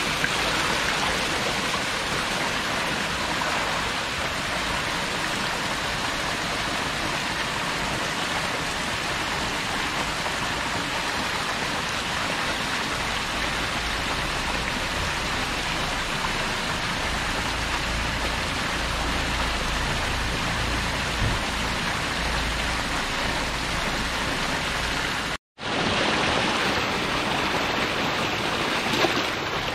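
Steady rushing and splashing water from a tank crowded with feeding catfish churning the surface, mixed with water running from hoses and pipes. The sound drops out for an instant near the end, then carries on.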